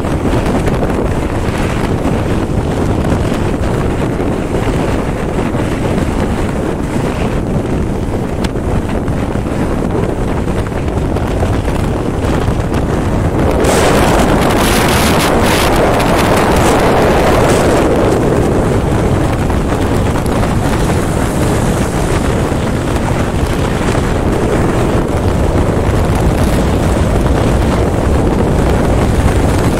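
Wind rushing over the microphone of a motorcycle riding at highway speed, with the bike's engine and road noise underneath. About halfway through, a louder rush swells up for a few seconds and then settles.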